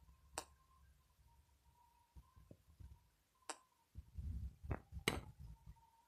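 Three sharp ticks around a wire budgie cage, about half a second in, midway and near the end, over a faint steady high tone. Low rumbling comes in the last couple of seconds as the filming phone is moved against the cage.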